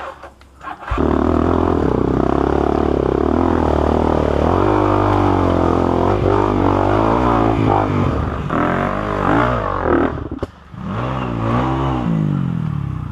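Honda Tornado trail bike's single-cylinder four-stroke engine, bored to 293 cc, running under throttle as the bike rides a rutted dirt trail, its revs wavering up and down. About ten seconds in it drops off briefly, then revs up and down a couple of times and dies away near the end.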